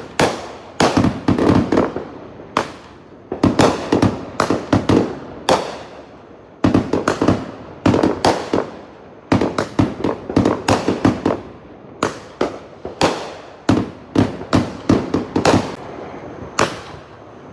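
Fireworks exploding in quick, irregular volleys of sharp bangs, each trailing off in a short echo.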